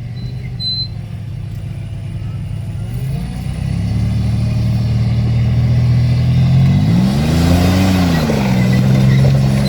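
Off-road rock-crawling vehicle's engine working at low speed, its pitch and loudness stepping up about three seconds in and rising and falling once more near the end: throttle bumps to crawl the vehicle up over rocks.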